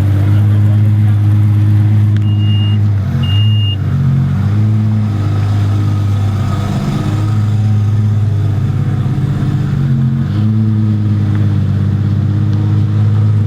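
Car engine running loud and steady, its pitch stepping down and back up a few times. Two short high beeps about two and three seconds in.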